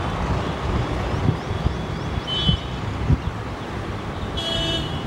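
Wheels of a train of LHB passenger coaches running over the rails as it moves away, with irregular clattering knocks from the rail joints over a steady low rumble. Wind buffets the microphone, and a brief high toot sounds about four and a half seconds in.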